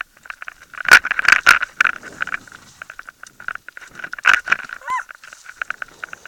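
Mountain bike rattling and clattering as it rolls down a rough, rutted dirt track, with a few hard knocks from hitting bumps: two close together about a second in and another a little past the middle.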